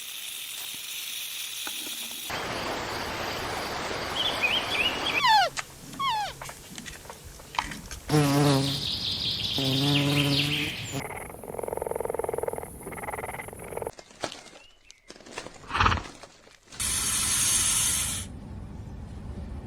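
A string of short, different animal and nature sounds cut one after another, several repeated pitched calls and falling glides among them, with abrupt changes between clips.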